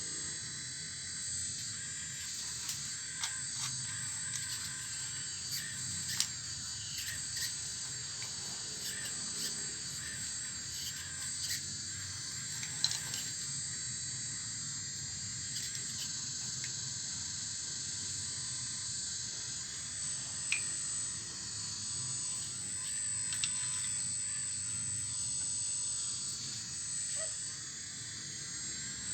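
Full-metal RC excavator digging in rock mixed with soil: a steady high-pitched hiss from the machine, with scattered sharp clicks and knocks of stones against the metal bucket.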